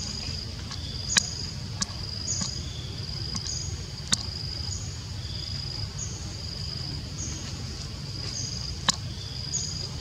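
An insect calls over and over, about once a second: each call is a brief higher note followed by a steady high buzz held for about half a second. A low rumble runs underneath, and a few sharp clicks stand out.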